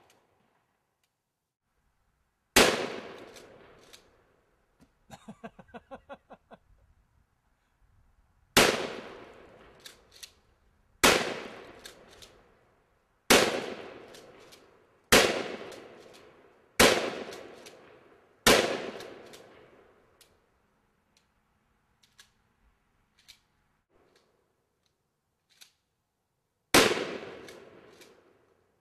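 Gunshots fired outdoors at pumpkins: eight sharp shots at uneven intervals, several about two seconds apart in the middle, each with a long echoing tail.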